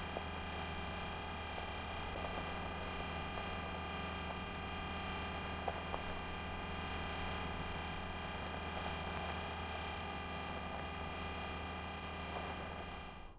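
Steady mechanical hum of the animated Curiosity rover's motors, a low drone under several fixed higher tones, with a few faint clicks; it fades out at the end.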